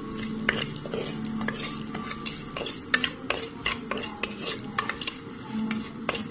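Sliced onions, green chilli and ginger sizzling in hot oil in a clay pot while a wooden spatula stirs them, with frequent sharp knocks and scrapes of the spatula against the pot. The onions are being sautéed until soft.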